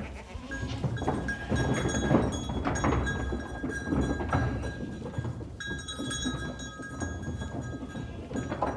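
Instrumental music with percussion and a few held high notes.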